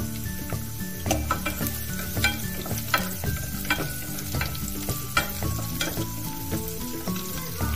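Sliced garlic and green chillies sizzling in hot oil in a pot while being stirred. Sharp crackles and spatula scrapes against the pot come many times.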